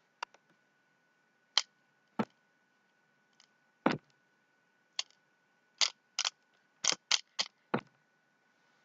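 Fidget spinner being handled, giving about a dozen short, sharp clicks at irregular intervals that come closer together in the second half.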